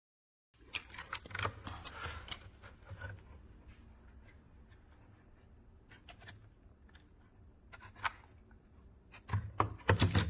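Handling noise: scattered clicks, taps and rubbing as small objects are handled, with a cluster of louder clicks near the end.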